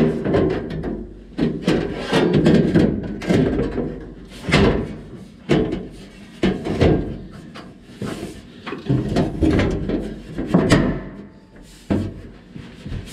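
A steel trunk floor pan being shifted and pressed into place in a Chevy II's rear body: irregular clunks and knocks of sheet metal against sheet metal, with a few sharper clicks.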